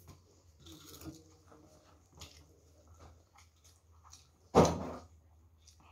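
Faint eating and hand-handling sounds over a steady low hum, with one sudden short loud noise about four and a half seconds in.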